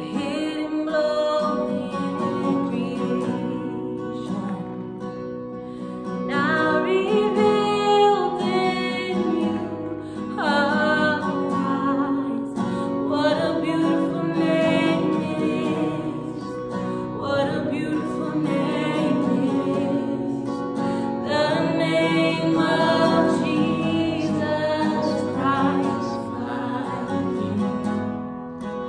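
Worship song performed live: an acoustic guitar strummed under several voices singing.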